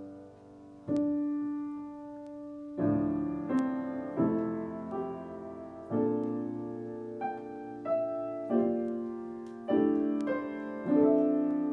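Solo piano playing a slow postlude: full chords struck about once a second, each left to ring and fade before the next.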